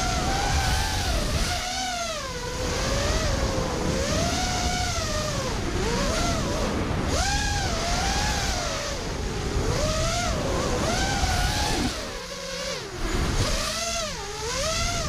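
5-inch FPV racing quadcopter's brushless motors whining, the pitch swooping up and down constantly with the throttle, over a rush of wind noise. The sound drops away briefly about two seconds in and again near twelve seconds as the throttle is eased off.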